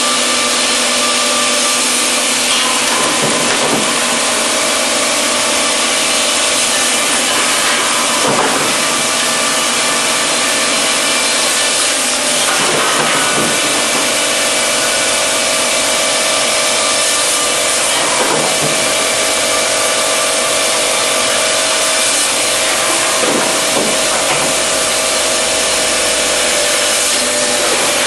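Chain-saw cutting unit of a PRINZ PC120 package cross-cut line running steadily as its bar cuts down through a stacked package of sawn timber boards. A faint sweep in the sound recurs about every five seconds.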